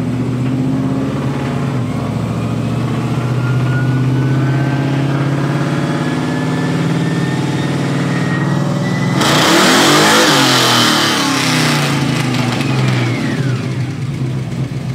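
Square-body Chevy pickup's V8, which looks to be a big block, making a full-throttle pull on a chassis dyno. The revs climb with a rising whine for several seconds. The engine then gets much louder and harsher for about three seconds. After that the throttle comes off and the whine falls away as it spins down.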